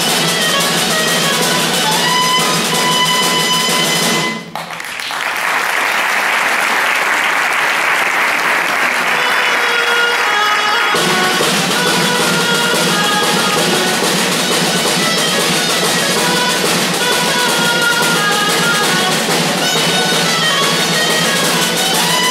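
Live folk dance music with a melody over drums. About four seconds in it breaks off and applause runs for some six seconds, then music with drums starts again about eleven seconds in.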